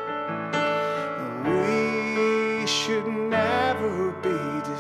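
A man sings a slow hymn over sustained piano chords from a Nord Stage keyboard. At first only the chords sound; the voice comes in about a second and a half in, with vibrato on held notes.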